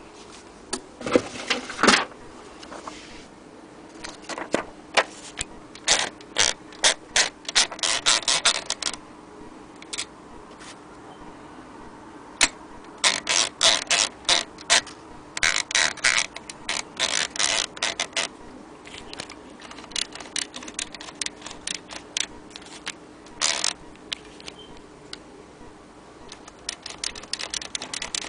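Imperial Good Companion 3 manual portable typewriter being typed on: irregular runs of sharp mechanical clicks, several a second, broken by short pauses.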